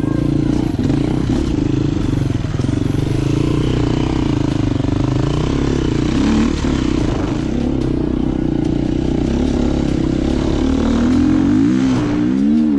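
Trail motorcycle engine running steadily, with the revs rising and falling repeatedly near the end.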